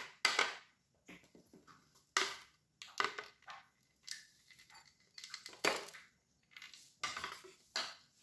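A spoon scraping ground roasted peanuts out of a plastic chopper jar into a glass bowl: several short, irregular scrapes and knocks of the spoon against the jar, with the crumbly peanut meal falling.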